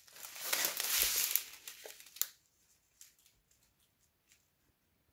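Plastic packaging crinkling as a strip of sealed bags of diamond-painting drills is handled, for about two seconds, then a few faint ticks.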